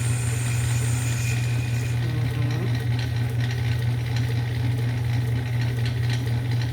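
Small lathe running with a steady low motor hum. A faint high whine stops about two seconds in, and faint ticks follow.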